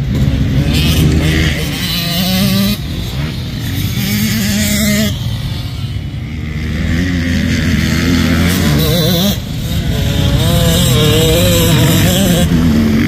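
Motocross dirt bikes riding the track, their engines revving up and down as they go, with the pitch rising and falling repeatedly over a steady low rumble.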